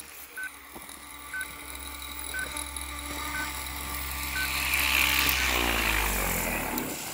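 OMPHOBBY M4 MAX electric RC helicopter running, its motor and rotors giving a steady hum, with a short beep about once a second for the first few seconds. The rotor noise swells to its loudest about five seconds in, then the steady tones fade out near the end.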